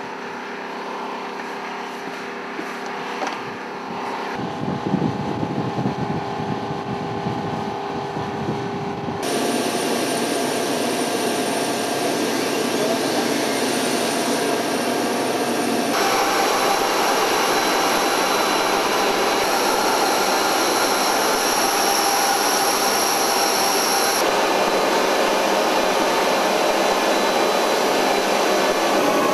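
Aircraft turboprop engines running steadily, a whine with rushing noise, heard through several cut-together shots so that the sound changes abruptly a few times and gets louder after the middle. The MC-130P's four turboprops are the likely source.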